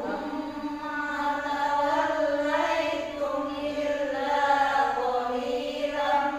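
A man reciting the Qur'an in melodic tilawah style, holding long ornamented notes that waver slowly up and down.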